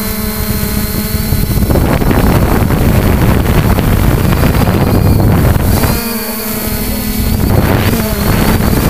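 Multirotor drone's propellers humming at a steady pitch, drowned out by loud wind buffeting on the microphone from about two seconds in until about six seconds, and again briefly near the end.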